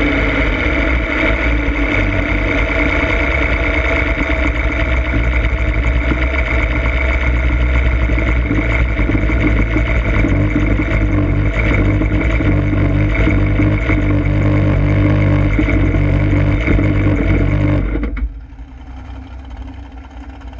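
Hondo drag boat's big-block Chevy V8 running steadily under way, heard onboard with water and hull noise. A little past 18 seconds in it is suddenly throttled back and settles to a much quieter idle.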